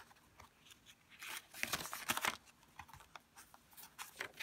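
Paper pages of a junk journal being turned by hand, rustling and crinkling. The loudest rustling comes in a cluster about one and a half to two and a half seconds in, with a few smaller rustles near the end.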